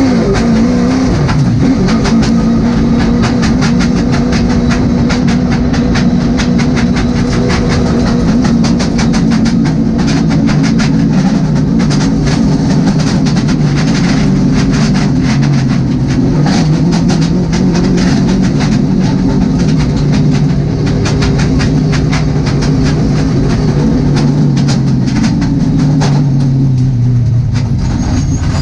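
Late model stock car's V8 engine heard from inside the cockpit, running at low, steady revs as the car rolls slowly, with a constant clicking rattle over it. The engine note drops near the end as the car slows.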